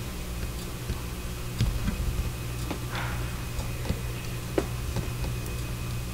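Scattered light clicks and taps from a plastic model kit's fuselage part being handled and shifted on the table, over a steady low hum.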